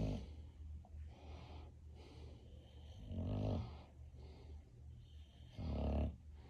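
English bulldog snoring in its sleep: three loud snores about three seconds apart, with softer breaths between.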